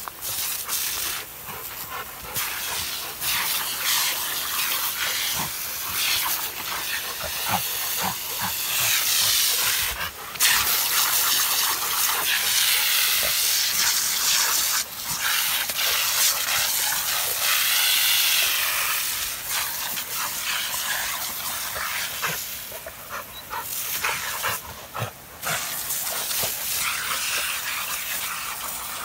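Lawn sprinklers spraying with a steady hiss that wavers in tone now and then, with short knocks and rustles from dogs moving through the spray close by.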